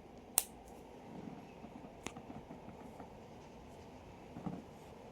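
Two sharp clicks about a second and a half apart, with faint rustling handling noise around them.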